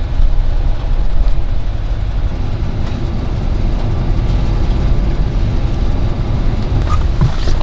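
Vehicle engine running steadily, a constant low rumble.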